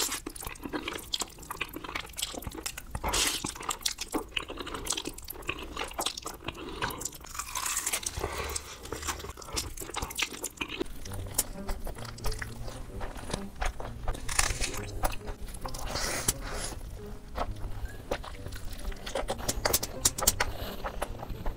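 Close-miked eating sounds: a person chewing and biting, with frequent crisp crunches and wet mouth clicks from noodles and fried chicken.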